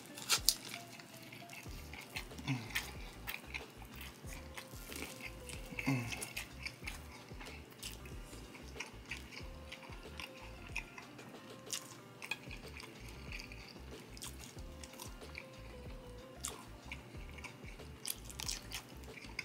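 Close-miked eating of corn on the cob and snow crab legs: a scatter of sharp wet clicks, smacks and crunches of biting and chewing, with two short falling hums near 2.5 s and 6 s.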